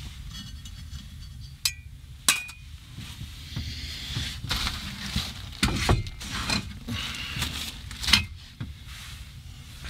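Camp cookware being handled: two sharp clinks, the second ringing briefly, about two seconds in, then rustling and a few light knocks.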